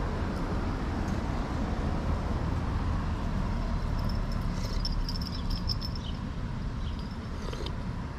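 Steady low rumble of vehicle noise, with a short run of faint, high chirps about four to six seconds in.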